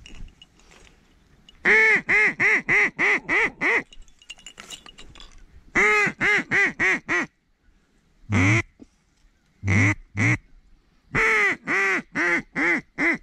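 Duck call blown in mallard hen quacks, loud and close: three fast runs of about six to eight quacks, with a single quack and then a pair between them.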